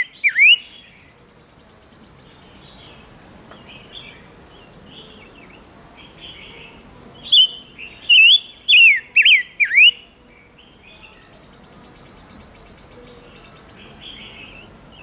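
Silver-eared mesia calling: a phrase of about six loud, clear whistled notes, each sliding downward, starts about seven seconds in. Softer chattering calls fill the time before and after it.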